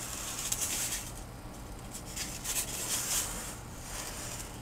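Foam block sliding and rubbing on a base board against the tip of a Sharpie marker as a line is drawn around it, in several short scratchy strokes.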